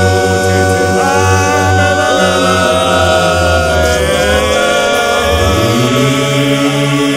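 Mixed choir of men and women singing a cappella in held chords, with a deep bass part under the upper voices. About five and a half seconds in, the bass moves up to a higher note.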